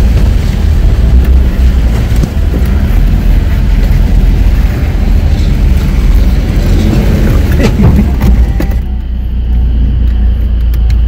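Tata Safari 4x4's diesel engine running under load as the SUV drives along a muddy off-road trail: a steady deep rumble with a few knocks about eight seconds in, and the hiss above it drops away suddenly about nine seconds in.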